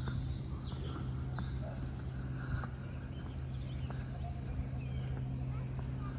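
Small birds chirping and singing in the trees, short high calls scattered throughout, over a steady low hum.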